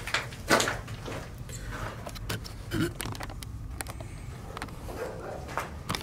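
Scattered knocks and scuffs of footsteps and camera handling, with clothing brushing against the camera, over a steady low rumble.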